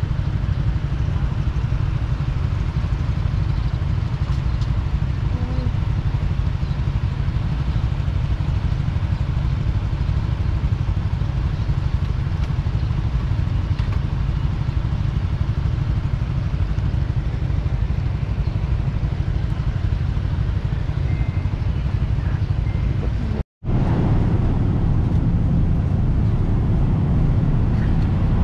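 Motorbike engines idling and running, a steady low rumble, with a brief dropout about 23 seconds in.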